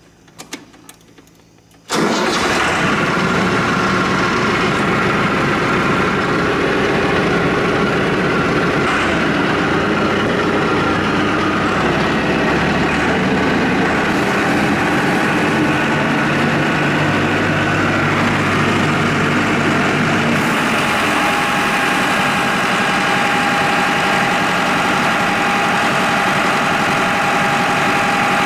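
Mahindra 8560 tractor's diesel engine starting up about two seconds in and running steadily. From about two-thirds of the way through, a steady whine joins it as the loader hydraulics are held at the relief valve's pressure, now set to about 2,800 psi.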